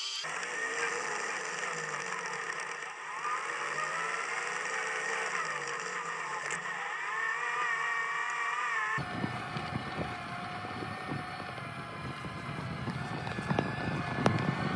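Electric drive motor (a repurposed forklift motor) of a battery-electric Massey Ferguson 35 conversion, whining under load while it pulls a two-bottom plow, its pitch wavering and gliding. About nine seconds in, the sound changes abruptly to a rougher, noisier mix with scattered ticks and clatter over a fainter steady whine.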